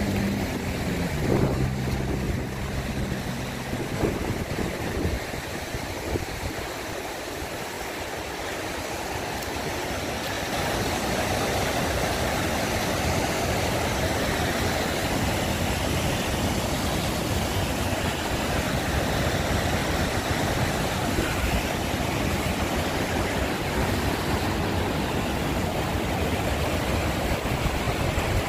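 A steady rushing noise that fills most of the stretch. In the first few seconds it is mixed with low steady tones that shift in pitch in steps.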